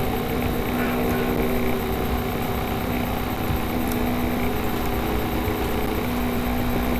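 A steady mechanical hum that does not change.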